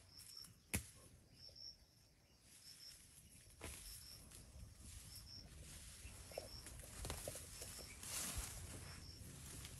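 Faint garden ambience: a short high chirp repeats about once a second throughout. A sharp click comes just under a second in. From about seven seconds, leafy plants rustle as they are pulled up by hand.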